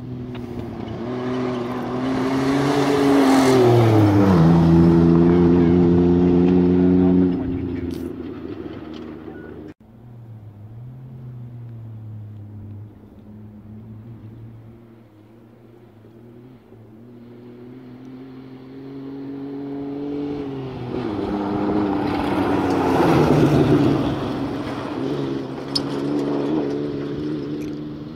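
2002 Ford Ranger rally truck passing at full throttle on a gravel road, its engine note dropping in pitch as it goes by over the noise of tyres on gravel. A second pass follows after a cut, building up over several seconds before the same drop in pitch.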